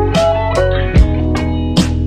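Background music led by guitar, with bass and a steady drum beat.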